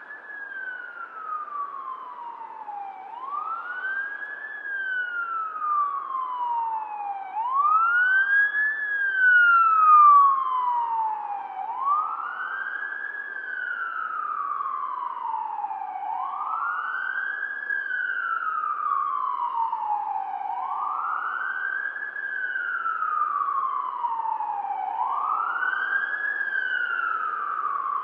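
Distant police siren on a wail cycle, its pitch rising quickly and falling slowly about once every four seconds. It grows louder around a third of the way through, then eases back.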